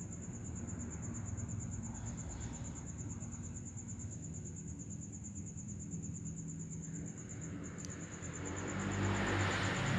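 A cricket trilling steadily in a high, evenly pulsing tone, with a short break about eight seconds in, over a low hum. A louder rustling noise swells near the end.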